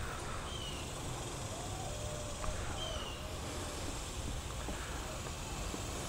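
Outdoor ambience: a steady low rumble, with a bird's short falling chirp repeated about every two seconds and a few faint clicks.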